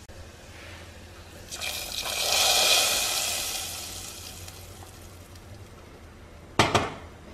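Garlic browned in hot fat is tipped into a pot of cooked beans and hisses and sizzles for about three seconds, swelling and then dying away. Two sharp knocks come near the end.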